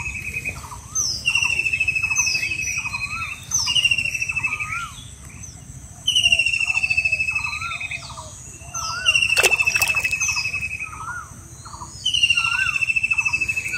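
Birds calling steadily: a long, slightly falling trill of about two seconds that repeats every two to three seconds, over many short lower chirps. One sharp click comes about halfway through.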